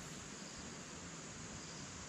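Faint, steady high-pitched chirring of insects, crickets or cicadas, over a soft even hiss of outdoor background.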